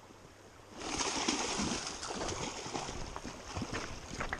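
Water splashing and sloshing, starting about a second in, from a hooked steelhead thrashing at the surface.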